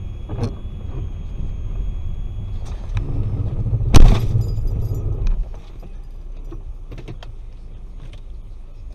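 Low road and engine rumble inside a moving car's cabin, broken about four seconds in by one loud bang, typical of a collision.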